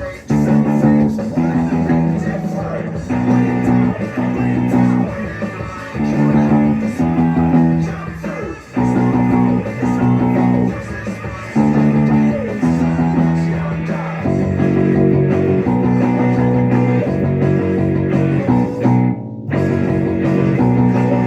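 Music with guitar and bass: repeated chords in a steady rhythm.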